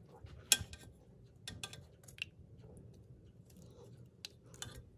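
Chopsticks clicking and tapping against a stainless steel pressure cooker pot as chicken pieces are lifted out of the broth, a handful of sharp clicks with the loudest about half a second in.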